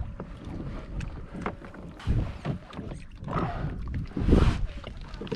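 Water sloshing against a kayak hull, with scattered knocks and clicks from fishing gear being handled on the kayak. A louder splash comes about four seconds in.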